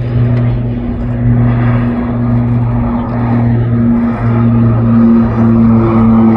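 North American Rockwell OV-10 Bronco flying past, its twin turboprops making a low, steady propeller drone with a slow throb about once a second, growing louder as it nears.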